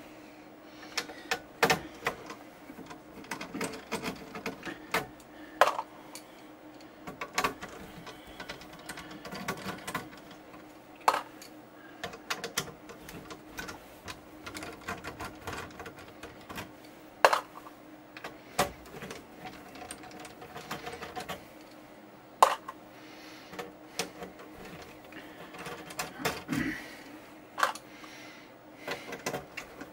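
Small hand screwdriver backing screws out of a circuit board in a metal chassis: irregular clicks, scrapes and small metallic taps, a few of them sharper and louder, over a faint steady hum.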